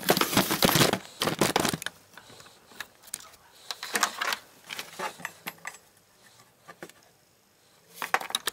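Clatter of small hard objects being handled: two dense bursts of knocks and rattles in the first two seconds, then scattered clicks and taps that die away and pick up again briefly near the end.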